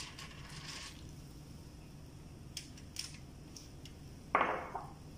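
Water poured from a mug into a foil-lined baking tray: a short splashing pour in the first second. A few faint clicks follow, and a sudden louder noise about half a second long comes near the end.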